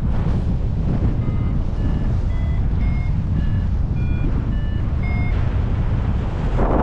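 Paragliding variometer sounding its climb tone: short beeps of shifting pitch, about two a second, which signal rising air. They stop a little after five seconds in. Heavy wind rumble on the microphone runs under them.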